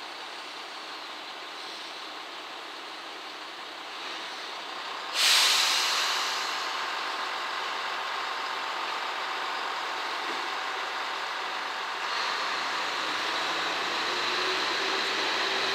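JR Shikoku 1200/1500-type diesel railcars standing at a platform: a sudden loud hiss of air, typical of the air brakes releasing, about five seconds in, fading over a second or so. The engines then run as the train starts to pull away, growing louder, with a steady low drone coming in near the end.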